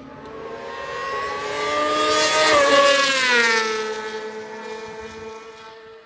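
Supersport race motorcycle passing at high revs. Its engine note grows louder and rises slightly as it approaches, is loudest about two and a half to three seconds in, then drops in pitch and fades as it goes away.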